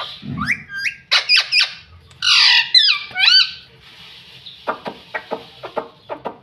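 Indian ringneck parakeets whistling, chirping and squawking in quick gliding calls, loudest about two to three seconds in, then a quick run of short clicking chatter near the end.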